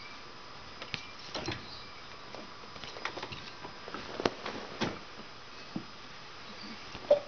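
Scattered light taps and scuffs from a kitten batting at a hand and shifting its paws on a chair seat, with a brief, louder sound just before the end.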